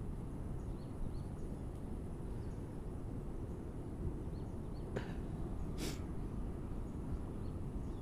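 Outdoor ambience by a pond: a steady low rumble of wind and handling on the microphone, with faint short high chirps through it. Two sharp clicks stand out about five and six seconds in.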